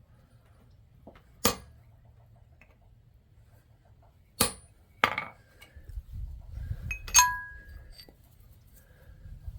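Metal-on-metal clinks from blacksmithing tools, four sharp strikes spaced unevenly; the last is the loudest and rings briefly.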